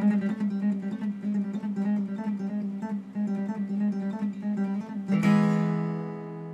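Music on acoustic guitar: a quick picked pattern of notes over a steady low note, ending about five seconds in on a strummed chord that rings out and fades.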